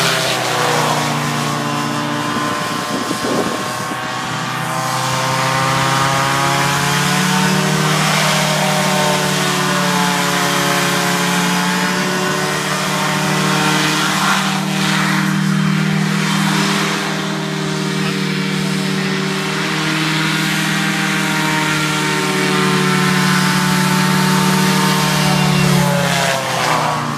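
Small personal hovercraft's engine and ducted fan running under way, loud and steady. The note dips and rises several times and falls away near the end.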